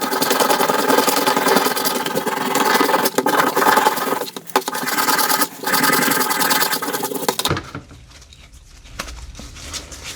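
Wire brush scrubbing rusty steel parts of a Record G-clamp after a vinegar soak, a dense, continuous machine-like scratching whirr with two brief breaks, stopping abruptly about seven and a half seconds in.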